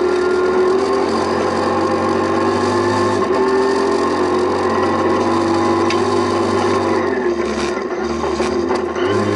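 Rally car's engine running hard at steady high revs, heard from inside the cabin, with the pitch dropping and climbing again in the last couple of seconds as the driver lifts and changes gear; a few sharp ticks from gravel striking the car.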